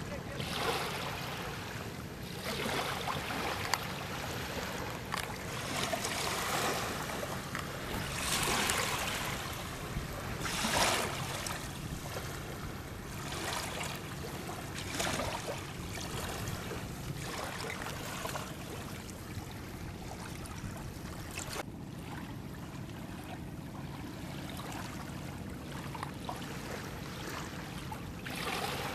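Water splashing and sloshing around a small fishing boat on a river, in uneven swells every second or two, over a steady low hum. The splashing is busier in the first half and calmer later.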